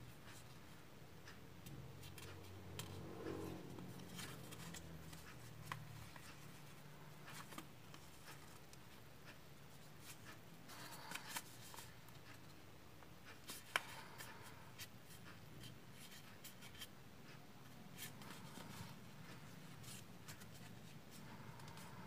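Faint rustling and soft crinkling of a sheet of origami paper being folded and handled, with scattered small clicks and one sharper crackle about fourteen seconds in.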